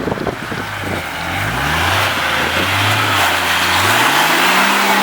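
Four-wheel-drive engine accelerating, its pitch climbing twice as it revs up, over a steady rushing noise. A few sharp knocks near the start.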